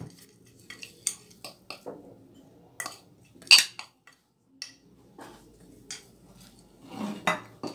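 Spoon scraping and tapping the inside of a ceramic bowl while ground dry fruits and nuts are tipped out of it into a glass bowl, with scattered light clinks and knocks of crockery. The loudest knock comes about three and a half seconds in.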